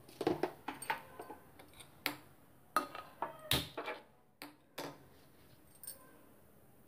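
A gas stove being lit under a metal pot: a handful of short, sharp clicks at irregular intervals, with light metallic knocks.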